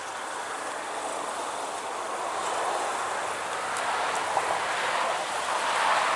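Honeybees buzzing around an open hive, a steady hum that swells gradually towards the end.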